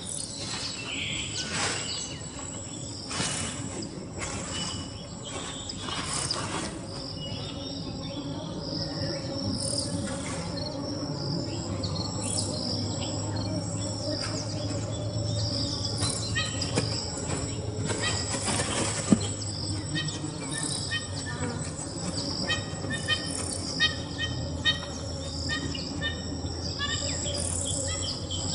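Savanna ambience of insects and birds chirping, with scattered short rustles. A low steady hum comes in about halfway through.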